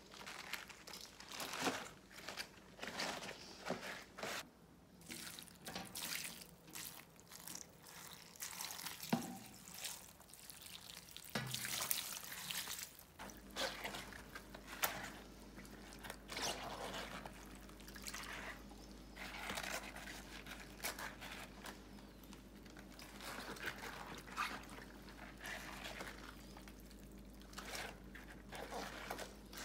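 Rubber-gloved hands handling wet, halved napa cabbages in a plastic basin while salting them for kimchi: irregular wet rustling and handling noises of the leaves, with drips of water.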